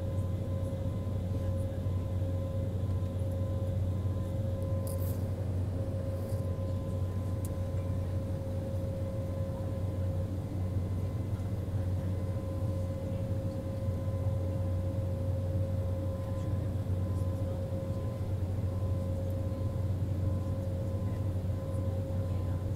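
Steady cabin hum inside a jet airliner standing on the ground before takeoff, engines idling: a deep even drone with a thin steady whine above it. A couple of faint ticks about five and six seconds in.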